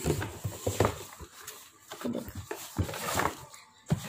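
A cardboard shoe box being handled and opened by hand: an irregular string of sharp knocks and taps with rustling, scraping cardboard between them.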